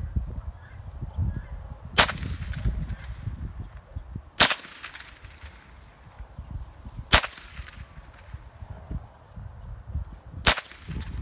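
Four single shots from a .22 rifle, spaced about two and a half to three and a half seconds apart. Each is a sharp crack with a brief echo trailing after it.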